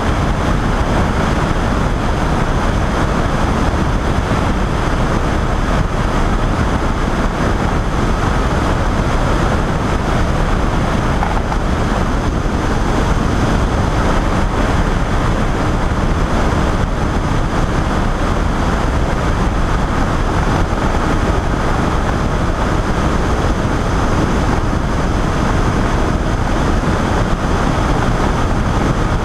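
Steady rush of wind over the microphone, mixed with the constant drone of a flex-wing microlight trike's engine and pusher propeller in level flight.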